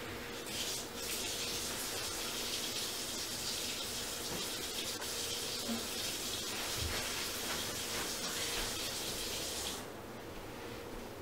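A steady rushing hiss that starts about half a second in and cuts off suddenly near the end, over a faint steady hum.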